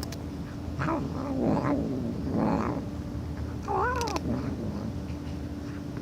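A domestic cat making a series of drawn-out, wavering yowls, about four calls, one near the middle arching up and down in pitch. A steady low hum runs underneath, and there is a short click at the very start.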